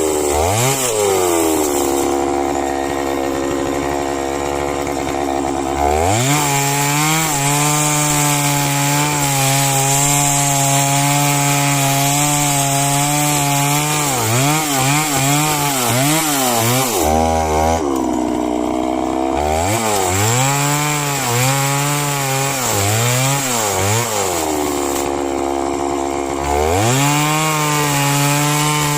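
Chainsaw cutting into a tree: the engine runs at high revs, its pitch dipping and wavering as the chain bites into the wood. It drops back to idle three times for a few seconds each, about two seconds in, around seventeen seconds and around twenty-five seconds.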